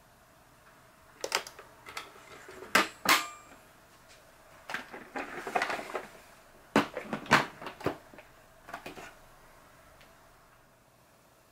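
Hard plastic clicks, knocks and scraping as the Toshiba VC-8300 vacuum cleaner's hinged plastic housing is handled and closed, with a few sharp snaps as the halves come together and latch.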